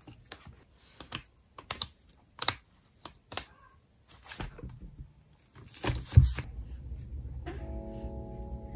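A series of sharp clicks and taps from paper and desk items being handled, then a louder rustle of a thick, stickered journal's pages being riffled through. Plucked-string music, like a ukulele, starts near the end.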